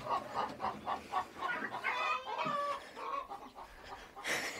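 Chickens clucking: a quick run of short clucks, then one longer call about two seconds in.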